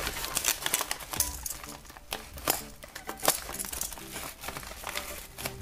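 Brown-paper and plastic mailing package crinkling and crackling as hands handle and pull at it, in irregular sharp crackles.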